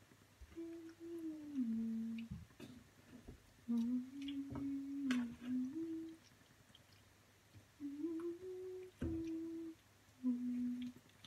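A woman humming a slow tune in four short phrases with pauses between them, and a few light clicks of a wooden spatula against the frying pan as she stirs.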